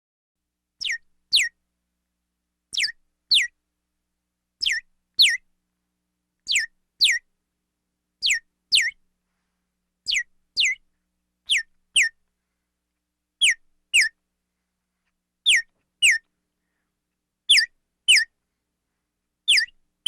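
Pairs of short chirps, each note falling quickly in pitch like a whistle, repeating about every two seconds with silence in between.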